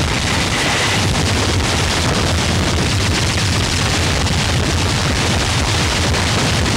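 A loud, continuous wall of distorted noise with a heavy low rumble and constant crackle, unbroken throughout.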